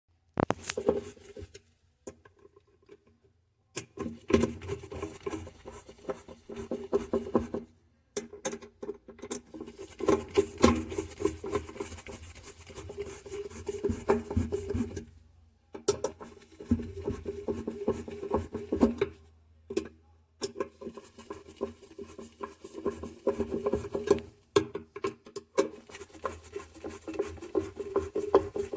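Scraping and rubbing strokes in quick succession, in stretches of a few seconds with short pauses between them.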